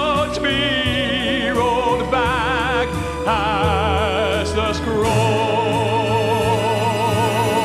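Gospel song with a solo voice singing with heavy vibrato over the band, settling into a long held note about five seconds in.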